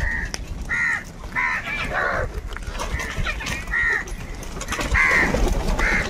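A flock of house crows cawing: about eight short, harsh caws spread over the few seconds, some overlapping, with sharp clicks between the calls.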